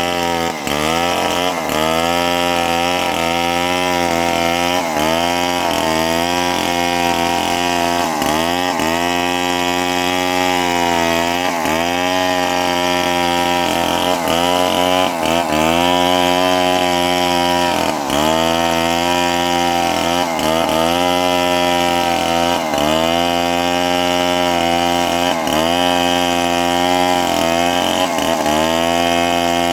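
Two-stroke chainsaw running at high revs, cutting into a lamtoro tree; the engine note sags and recovers every couple of seconds as the chain bites into the wood.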